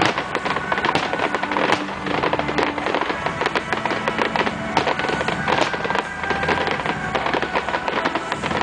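Fireworks display: dense, rapid crackling and popping from many shells going off at once, with music playing alongside the show.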